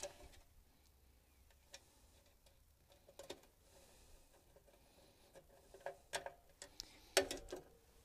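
Faint, scattered clicks and taps of a screwdriver and screws as the capacitor is screwed back into place in an AC unit. There is a handful of separate clicks, the loudest near the end.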